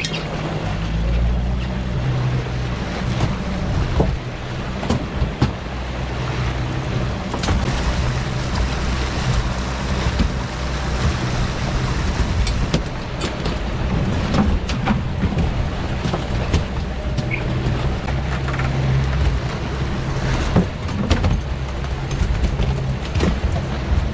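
Suzuki 300 outboard motor running steadily, a low hum under the wash of wind and water from the wake, with occasional short knocks.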